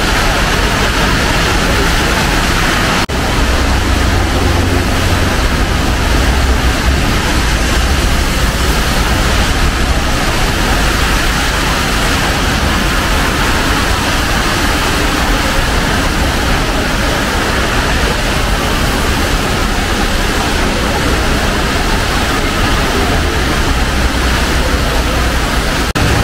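City street noise in the rain: a steady loud hiss with a low rumble of traffic underneath, briefly broken by a cut about three seconds in.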